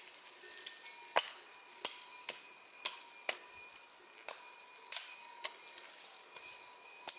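Dry twigs and small branches snapping and cracking, about nine sharp cracks at uneven intervals, as a long wooden pole is moved through conifer branches. Faint steady high tones run underneath.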